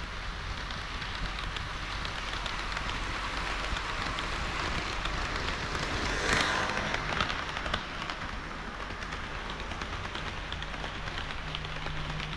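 HO-scale model KiHa 40/KiHa 58 diesel railcar train running on the layout track: a steady rolling rattle of metal wheels on rail with a low motor hum, swelling to its loudest about six seconds in and easing off after about eight seconds.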